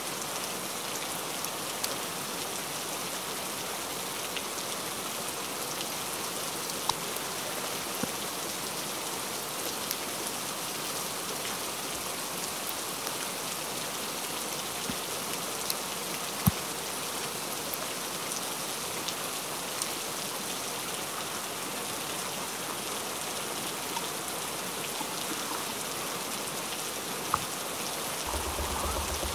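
Heavy rain falling steadily, a dense even hiss, with a few sharp ticks scattered through. A low rumble joins near the end.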